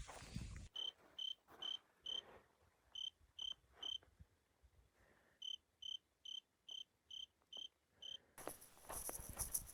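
A cricket chirping: short, clear, single-pitched chirps a little over two a second, in runs broken by a pause about four seconds in.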